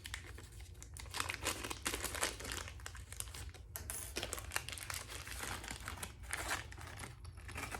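Small plastic zip bag being opened and handled, an irregular crinkling and rustling of thin plastic throughout.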